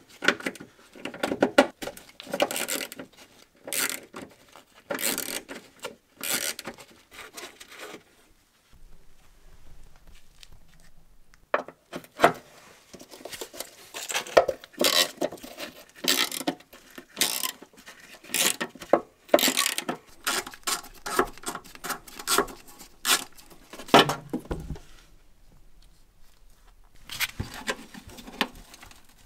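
Bursts of quick clicking and clatter from a hand ratchet with a socket on an extension undoing the bolts of the plastic underbody panel, with a couple of short pauses.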